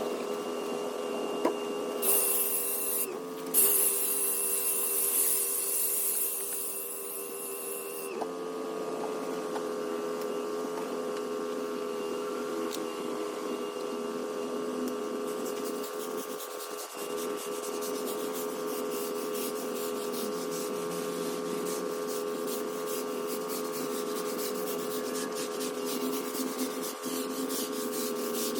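Pressure washer running steadily with a pitched drone. About two seconds in, a loud hiss of water spray starts and lasts about six seconds. In the second half a fast, scratchy rasp joins the drone.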